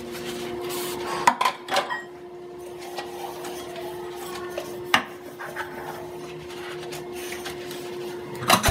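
Dishes being washed by hand in a stainless steel sink: a soapy sponge scrubbing plastic cups, with a few knocks and clinks as cups are handled and set down, the loudest cluster near the end. A steady hum runs underneath.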